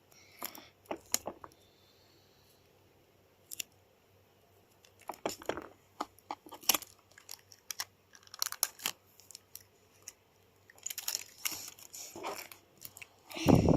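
Paper crinkling and clear sticky tape crackling as paper pieces are taped together, in short irregular bursts separated by pauses.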